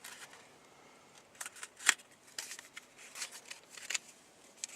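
A small novelty packet being handled and opened by hand: a string of short crinkling snaps and clicks of wrapper material, the sharpest about two seconds in.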